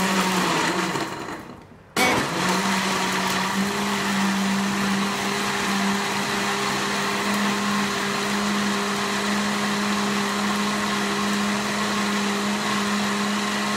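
Electric jug blender running as it blends a banana milkshake: the motor winds down and stops about two seconds in, then is switched back on and runs with a steady hum.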